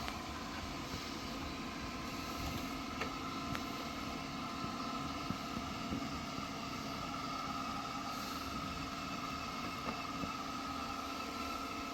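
Xiaomi H40 robot vacuum running, a steady suction-motor whine with a higher and a lower held tone, plus a couple of faint clicks a few seconds in.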